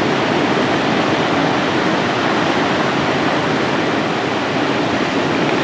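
Atlantic Ocean surf: a loud, steady rushing wash of breaking waves, with no single crash standing out.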